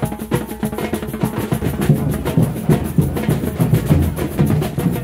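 Drum-led percussion music playing a fast, steady rhythm, with many quick strikes a second over deeper drum beats.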